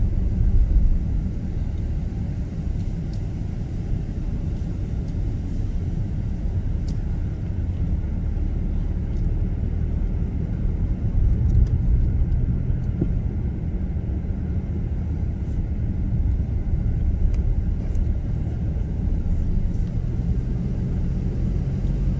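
Steady low rumble of a car driving slowly along a paved road, engine and road noise heard from the vehicle carrying the camera.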